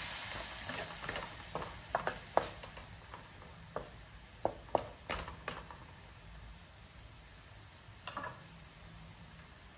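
Wooden spatula stirring and scraping minced pork around a metal wok, with a run of sharp clicks and taps against the pan over the first five seconds or so and one more brief clatter about eight seconds in. Under it the pork and its juices sizzle softly, the sizzle fading as the stirring goes on.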